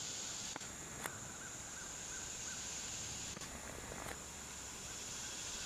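Steady high-pitched drone of an insect chorus in summer woods, with a short run of faint chirps about a second and a half in and a few faint clicks.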